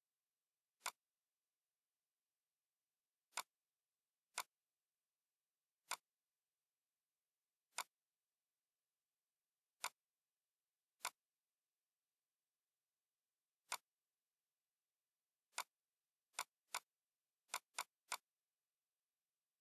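Computer mouse button clicks: about fourteen single sharp clicks at uneven intervals, with a quick run of several near the end.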